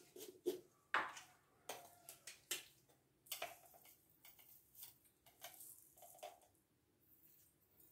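Faint, scattered clicks and light knocks of kitchen items being handled, thinning out toward the end.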